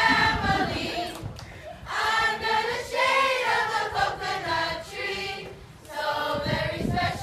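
A group of mostly children singing together in chorus, in sung phrases with short breaks between them.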